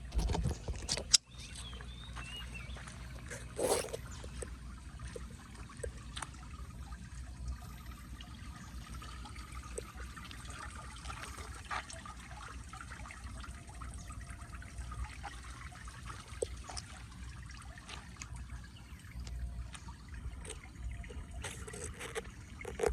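Floodwater trickling and running into a street storm drain, a steady watery noise with scattered small clicks and a sharp knock about a second in.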